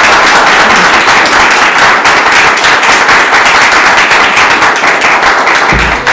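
Audience applauding: dense, steady clapping from many hands that begins to thin out near the end.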